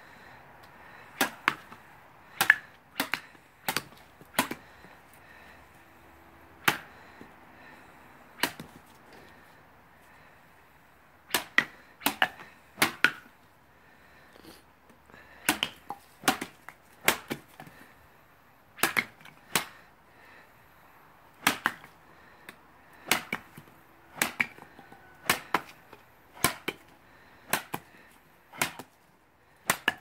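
Light Circassian shashka (sabre) chopping pieces off a thick vine held in the hand. There are about thirty sharp cracks of the blade cutting through the wood, many coming in quick runs of two to five strikes.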